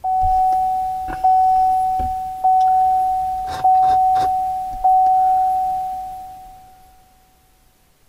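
Chevy Colorado ZR2's dashboard warning chime as the ignition is switched on: one steady tone struck five times, about a second and a quarter apart, fading away after the last. A few light clicks come between the chimes.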